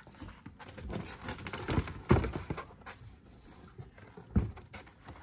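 Mountain bike wheels in cardboard protectors being handled and set down against a cardboard box: cardboard scuffing and rustling with a few dull thumps, the loudest about two seconds in and another near the end.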